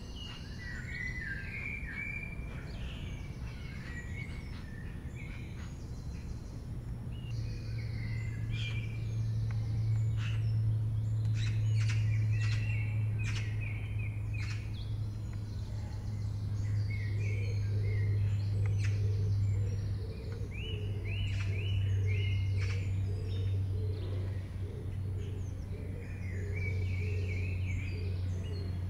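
Small birds chirping and twittering on and off over a steady low hum that grows louder several seconds in, with scattered sharp clicks.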